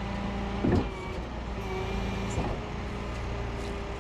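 A vehicle engine idling steadily, with a brief louder thump about a second in and a softer one a little past the middle.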